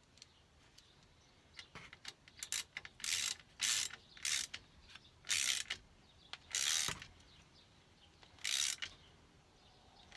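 Ratchet wrench clicking in a series of short strokes, about seven, as a bolt is tightened down.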